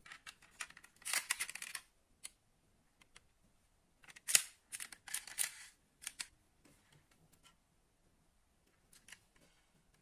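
Handling noise from a small diecast metal toy car turned over in the fingers: light clicks and scraping in two dense runs, about a second in and again from about four seconds in, with one sharp click just after four seconds.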